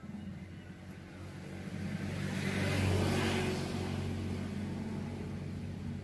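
A motor vehicle passing by: engine and road noise swell to a peak about three seconds in and then fade, over a steady low hum.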